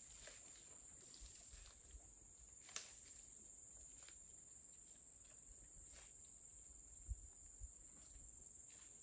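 Quiet outdoor ambience: a faint, steady high-pitched insect drone, with a few soft scattered ticks, one sharper click about three seconds in, and two dull low thumps near the end.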